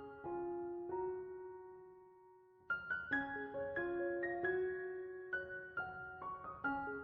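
Background piano music, a gentle melody of single struck notes: one phrase dies away over the first couple of seconds, and a new phrase begins just under three seconds in.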